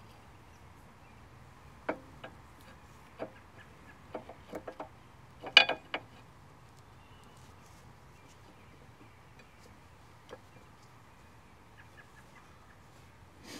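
Rear disc brake pads and caliper of a Mercedes ML350 being handled. Scattered sharp metal clicks and clacks, a quick cluster about four to five seconds in and the loudest about five and a half seconds in.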